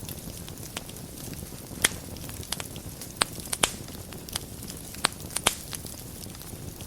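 Wood fire burning in a fireplace: a steady low rumble and hiss of the flames with irregular sharp crackles and pops, the loudest about two seconds in and around five seconds in.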